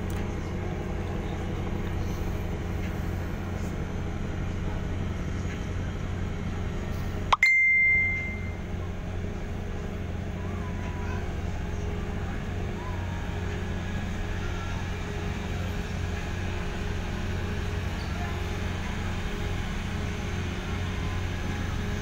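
Steady low drone of a ferry's engines, heard on board the moving ship. About seven seconds in, a single loud high-pitched beep rings out briefly.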